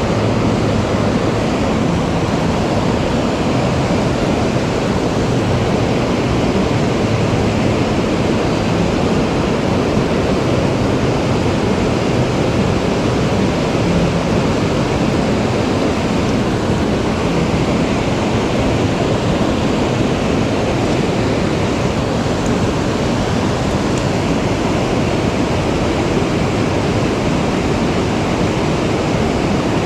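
Rushing mountain stream water, a loud, steady, unbroken rush with no separate events.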